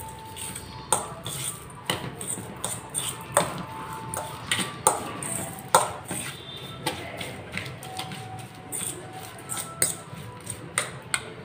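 A metal utensil stirring a chopped-vegetable and spice mixture in a stainless steel bowl: irregular clinks and scrapes against the bowl, several of which set it ringing briefly.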